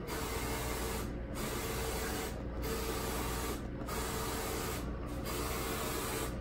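Roland FJ-50 wide-format inkjet printer printing: the print-head carriage runs with a steady hissing whir. The whir dips briefly about every 1.2 seconds, once per pass of the carriage across the media.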